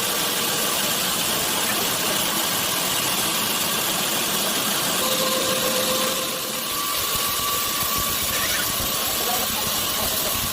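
Sawmill machinery running steadily: a dense mechanical noise with a faint steady whine.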